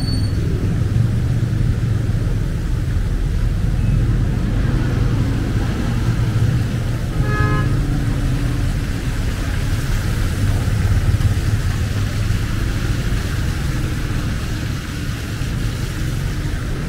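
Street traffic: motor vehicles running and passing with a steady low rumble, and a short horn toot about seven seconds in.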